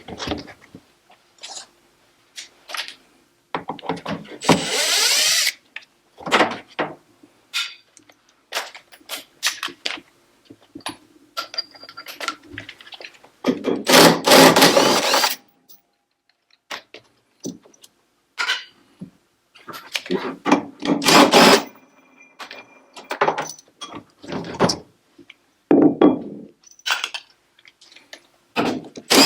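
Electric screwdriver or drill spinning screws out in several short runs of one to two seconds, between scattered knocks and clicks of washing-machine parts being handled.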